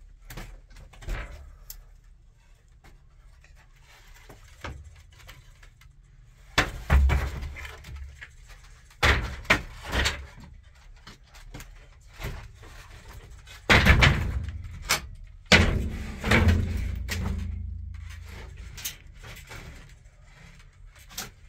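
Wooden pallets and planks knocking and scraping as they are laid across roof beams. After a few quiet seconds comes a run of loud wooden knocks and thuds, some followed by scraping.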